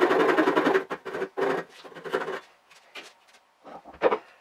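Workshop sounds played back at four times speed. A rapid, machine-like rasping breaks off about a second in, followed by scattered knocks and clatters of wooden parts and hand tools being handled on a workbench. The sharpest knock comes near the end.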